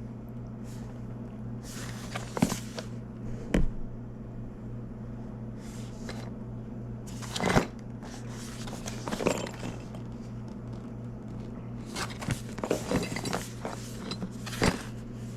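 Cardboard product box being handled and turned over: scattered short scrapes, rustles and knocks every few seconds, over a steady low hum.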